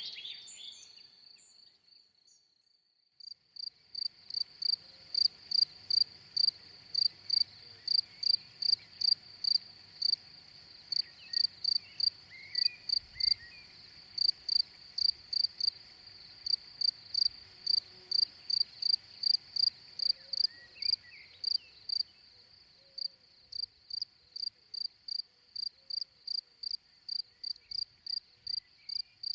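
Insect chirping, a cricket-like call: short high chirps at a steady pace of about two a second. It starts about three seconds in and breaks off briefly about three-quarters of the way through.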